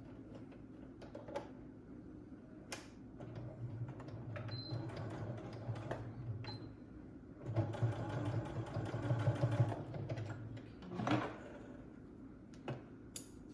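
Electric sewing machine stitching in two short runs of about three seconds each, putting a securing stitch into a cotton face mask. There are a few sharp clicks and knocks before and after the runs.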